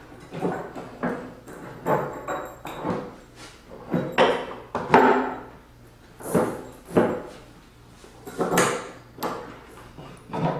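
Knocks, bumps and scrapes of wooden plywood mold parts being handled and fitted together by hand, a dozen or so irregular sounds of varying loudness.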